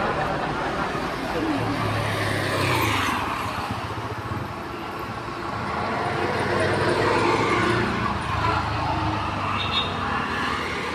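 Street traffic: cars passing and engines running, a steady rumble that swells and fades.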